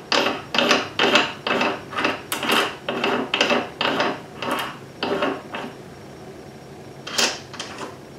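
Steel resizing die being screwed by hand into the threaded top of a reloading press, its threads rasping with each twist, about two strokes a second. The strokes stop a little past halfway, with one more short scrape near the end.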